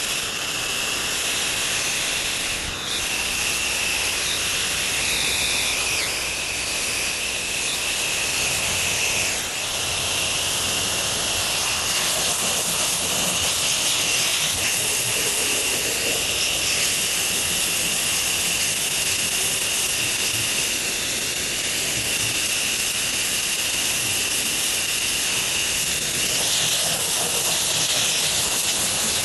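Pressure-washing spray hissing steadily against the house, with a steady high whine running underneath.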